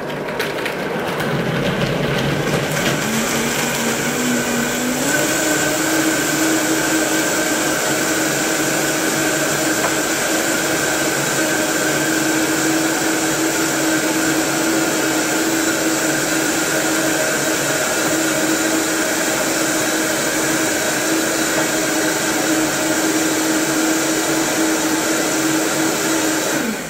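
Vitamix blender motor running loud, blending soaked almonds and water into almond milk. Its pitch climbs in two steps over the first five seconds as the speed goes up, holds steady for about twenty seconds, then stops near the end.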